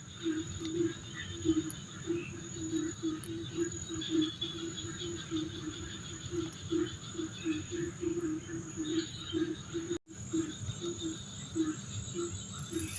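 Frogs calling in short, low croaks, several a second in an uneven rhythm, over a steady high-pitched drone of crickets or other night insects. The sound drops out completely for a moment about ten seconds in.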